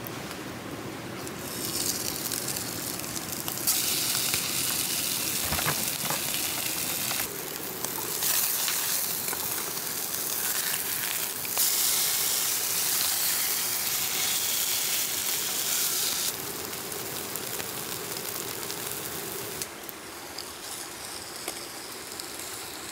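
Beef burger patties sizzling in a small frying pan on a gas canister stove: a steady frying hiss that jumps louder and quieter in abrupt steps several times, with one short knock about six seconds in.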